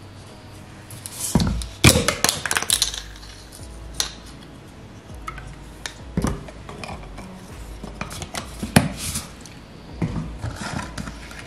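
Bottles, caps and a glass jar of iced coffee handled on a granite countertop: irregular knocks and clinks, with a burst of clatter about two seconds in and single knocks after, as creamer is poured over the ice.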